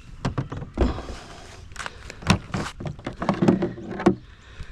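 A string of irregular knocks and thumps with rustling in between, ending about four seconds in: handling noise, not the boat's motor running.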